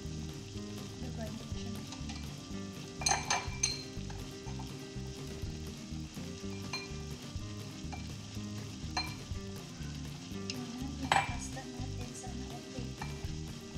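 A block of cheese rubbed back and forth on a flat handheld grater, a steady scratchy rasping. A few sharp knocks and clacks of the grater and hands against the plastic bowl, the loudest about three seconds in and again about eleven seconds in.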